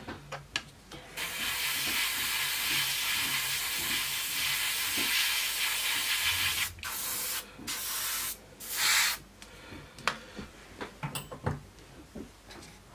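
Paint being sprayed onto small model parts: one long hiss of about five seconds, then three shorter bursts, followed by a few faint clicks.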